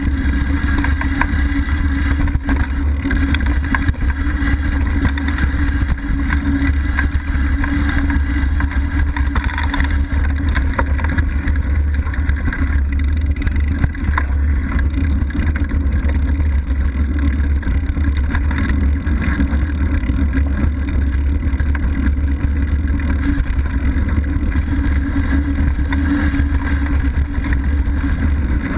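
Mountain bike rolling over a leaf-covered dirt singletrack, heard through the on-bike camera's microphone: a loud, steady, deep rumble of wind and tyre noise, with small knocks and rattles from bumps in the trail.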